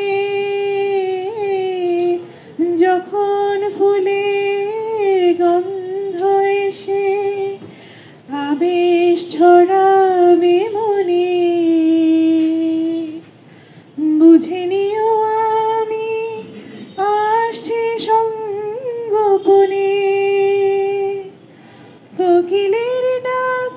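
A woman singing a slow Bengali song solo into a handheld microphone, with no instruments heard. She holds long, gently wavering notes, with short breaks between phrases about a third of the way in, past the middle, and near the end.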